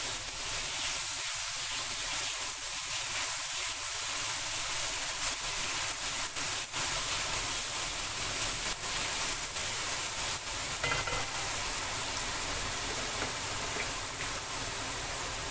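Ginger-garlic paste sizzling in hot oil in a non-stick wok, a steady frying hiss, with faint scrapes as it is stirred with a spatula.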